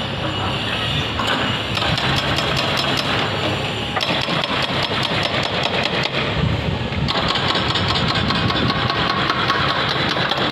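Construction-site machinery engines running steadily, with many sharp metallic clanks and knocks over them, the mix changing abruptly a few times.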